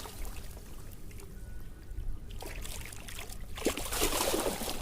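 Water splashing and trickling in two bouts, a short one about two and a half seconds in and a longer one near the end, over a low steady rumble.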